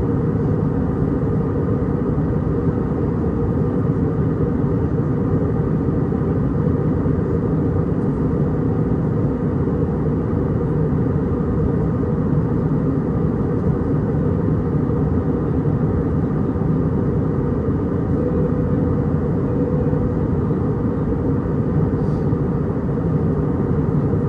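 Steady cabin noise inside an Airbus A319-100 on approach: the low rumble of its CFM56 turbofans and airflow over the fuselage, unchanging throughout.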